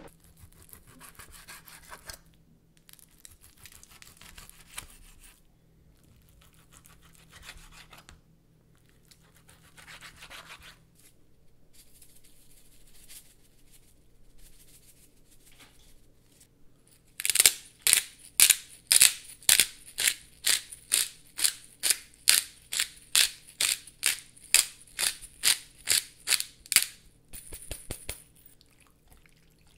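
Black pepper grinder being twisted, about two grinding strokes a second for some ten seconds, then stopping. Before it come softer, patchy handling and shaking sounds.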